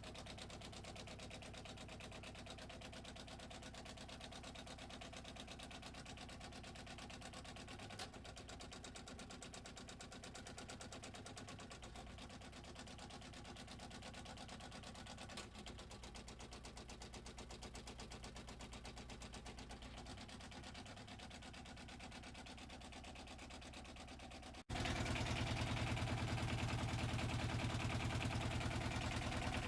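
Narrowboat's inboard engine idling steadily, a fast even run of firing pulses over a low hum. It jumps suddenly louder near the end.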